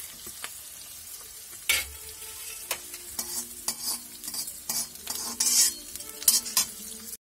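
Onions and green chillies sizzling in hot oil in an iron kadai, with a steel spatula scraping and tapping against the pan every second or so as they are stirred.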